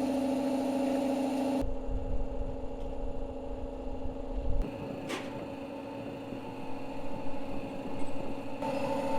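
Steady low mechanical hum from a running machine, with a low rumble for a few seconds after the first second and a half and a single sharp click about five seconds in.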